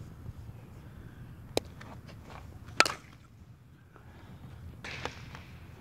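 A softball bat strikes a pitched ball: a sharp metallic crack with a brief ring, about three seconds in. A lighter click comes about a second before it.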